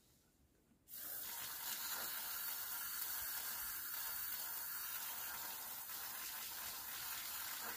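Aerosol cleaner can spraying onto a diesel engine's throttle body: a steady hiss that starts about a second in and runs for some six seconds. The can is running low.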